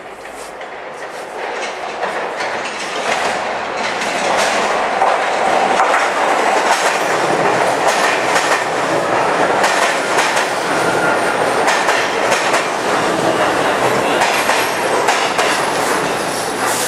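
New York City R subway train pulling into an underground station. Its noise builds over the first few seconds, then the cars run past loudly, the wheels clacking over the rail joints. A faint high squeal comes in near the end.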